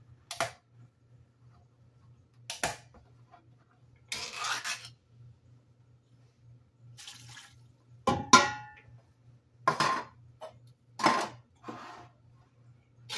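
Canned chicken and its juice being tipped and scraped out of metal cans into a stainless steel stock pot: a series of separate metal clanks and wet plops, with one clank about eight seconds in ringing briefly.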